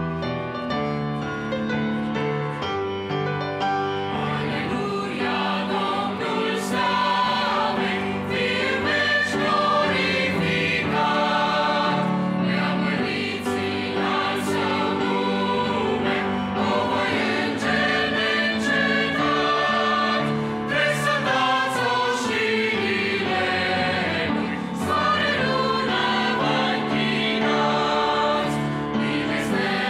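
Mixed choir singing a Romanian hymn with piano accompaniment, growing fuller and louder about four seconds in.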